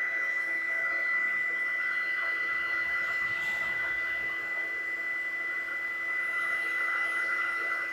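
Small electric heat gun running steadily, a blowing hiss with a constant high whine, heating heat-shrink solder connectors to shrink the sleeves and melt the solder.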